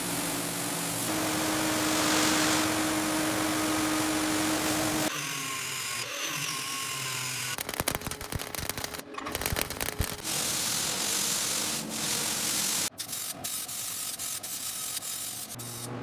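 Workshop tool noise: a steady whirring power tool with a held tone for about five seconds, then a run of rapid sharp clicks and knocks from about the middle on.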